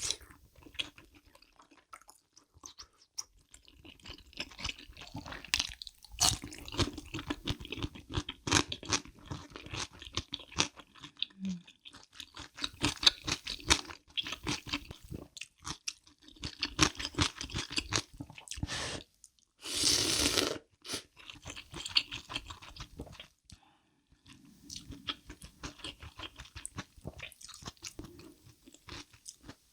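Close-miked chewing of crunchy kimchi, with irregular crisp crunches and mouth sounds, pausing briefly now and then. About two-thirds of the way through there is one longer, louder rush of noise lasting about a second.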